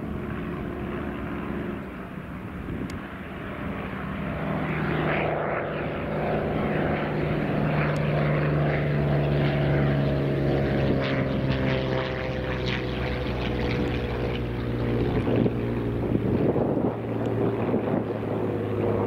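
A formation of nine de Havilland Tiger Moth biplanes flying past, their four-cylinder Gipsy Major engines running together. The engine notes grow louder from about four seconds in and slowly fall in pitch as the formation passes.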